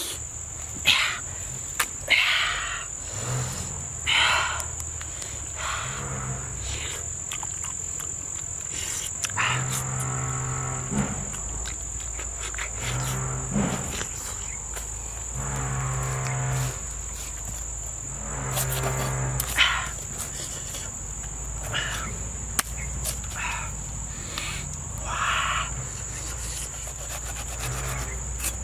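Insects trilling in one steady, high-pitched drone. In the middle come several long, low-pitched calls of about a second each, and short crunches and knocks are scattered throughout.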